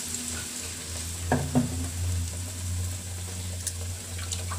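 Bread chops deep-frying in hot oil in a kadai, a steady sizzle. Two sharp knocks about a second and a half in, with a low hum underneath.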